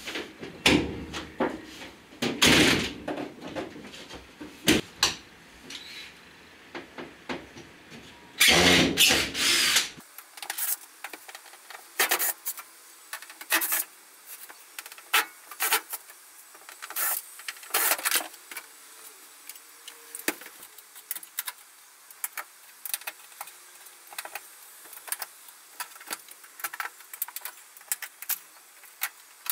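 A hardboard trim panel being pried off the inside of a van's rear door: a string of sharp clicks and knocks as the fixings pop and the panel is handled, with a longer, louder rough rattle about eight and a half seconds in.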